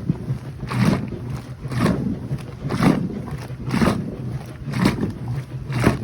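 Koblenz 15 kg washing machine in its wash cycle, water and clothes sloshing in a regular rhythm of about one surge a second over a steady motor hum.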